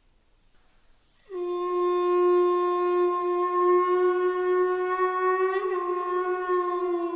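Bone flute made from a vulture's wing bone playing one long, steady note that starts about a second in, with a brief waver in pitch around five and a half seconds in.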